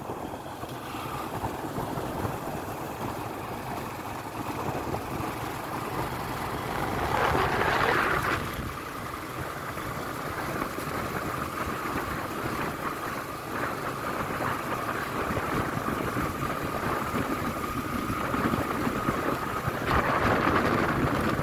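Motorcycle running steadily along a road, with wind and road noise on the microphone. It swells louder about a third of the way in, a thin steady whine holds through the middle, and it grows louder again near the end.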